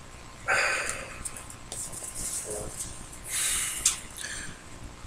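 Trading cards being handled: a few short rustling, sliding scrapes as cards are moved from hand to hand, the loudest about half a second in.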